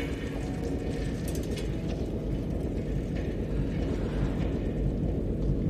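Film soundtrack ambience of a night city street: a low, steady rumble like distant traffic and aircraft, with a few faint ticks about a second and a half in.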